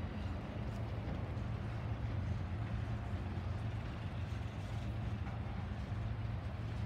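Norfolk Southern intermodal freight train rolling past: a steady low rumble of the cars' wheels on the rails, with a constant low hum under it.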